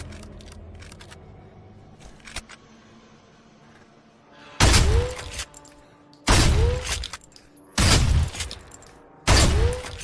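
Shortened Winchester Model 1912 pump-action shotgun firing four shots about a second and a half apart, each ringing out briefly. A few light clicks come before the first shot.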